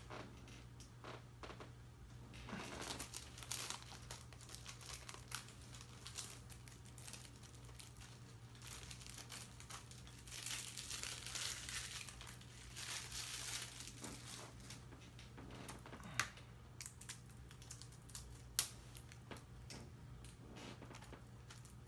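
Plastic shrink-wrap crinkling and tearing as it is peeled off a DVD case, in uneven bursts, with two sharp clicks in the second half over a low steady hum.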